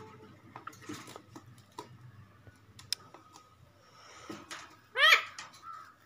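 Rose-ringed parakeet in a wire cage: scattered faint clicks and taps on the cage, then one short pitched call that rises and falls, about five seconds in.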